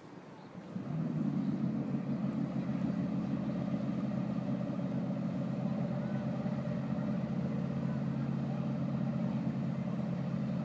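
Jet boat engine running steadily at low revs; its sound comes up sharply about a second in and then holds an even note.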